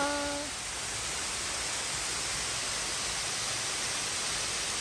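Steady rushing of a waterfall pouring down a rock face, with a brief voice at the very start.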